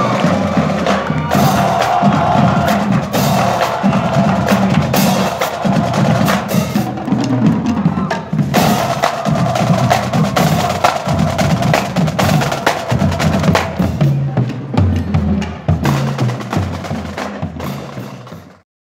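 Marching band drumline playing a cadence, snare drums struck in rapid, dense strokes over deeper drum beats. The drumming fades and cuts off near the end.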